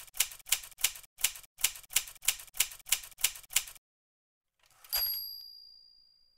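Typewriter sound effect: a run of evenly spaced keystrokes, about three a second, typing out on-screen text and stopping just under four seconds in. About a second later comes a single typewriter bell ding that rings out and slowly fades.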